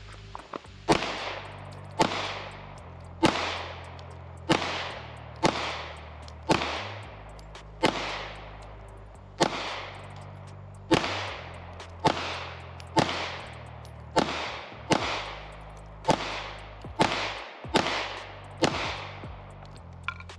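About seventeen 9mm shots from a Glock 19X pistol, fired singly roughly a second apart, each with a short echoing tail. A low music bed runs underneath.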